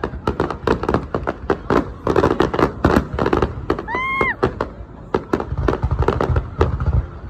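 Fireworks going off in a dense, irregular string of sharp cracks and pops, with one short pitched tone that rises and falls about four seconds in.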